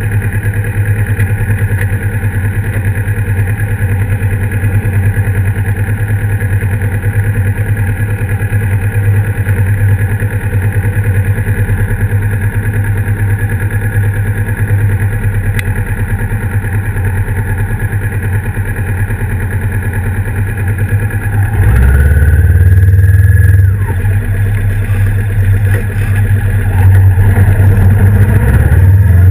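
Motorcycle engine idling steadily, then revving up about two-thirds of the way through and again near the end as it pulls away.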